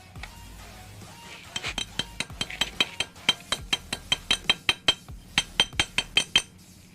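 A quick run of sharp metallic clinks, about five a second with a bright ringing tone, starting about a second and a half in and stopping shortly before the end: a metal tool working on engine parts during an engine rebuild.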